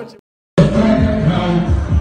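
A rapped vocal line trails off into a short dead-silent gap, then music with singing and deep bass starts abruptly about half a second in.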